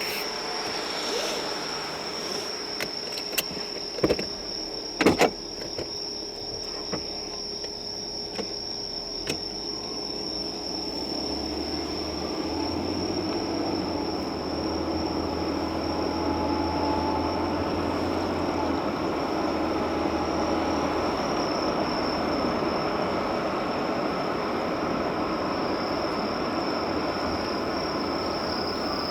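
Car driving, heard from inside the cabin: engine and road noise that grows louder from about ten seconds in, with a steady high-pitched whine throughout and a few sharp knocks around four to five seconds in.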